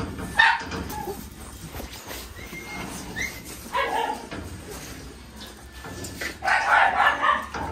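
A dog whining and giving short bark-like vocalisations in irregular bouts, with brief rising whines about three seconds in and the loudest, longest bout near the end.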